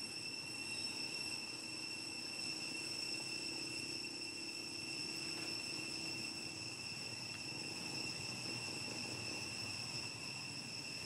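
Steady high-pitched insect drone, one pitch held without a break, over a low background rumble.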